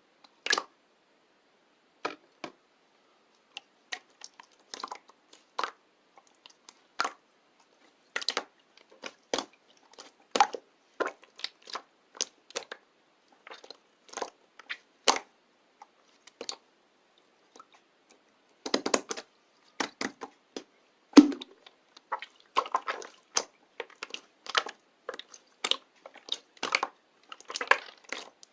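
Close, crisp crunches and clicks at irregular intervals, about one a second, coming thicker and louder in the second half.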